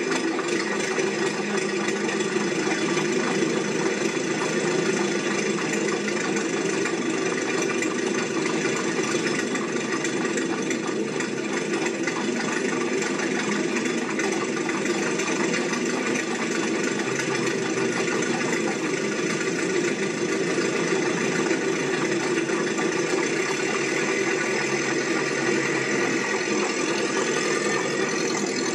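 A steady, unbroken mechanical running sound, with a constant hum of several tones and no change in level.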